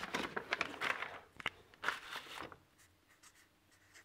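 Light rustling, scraping and small clicks of hands handling a marker and parts on a wooden workbench, busy for about two and a half seconds, then dying away.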